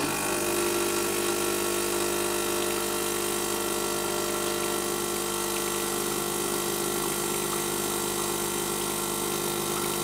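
Gaggia Selector Deluxe espresso machine's vibratory pump switching on and buzzing steadily as it pushes water out of the boiler through the group head, flushing out stale water, with water streaming into a glass.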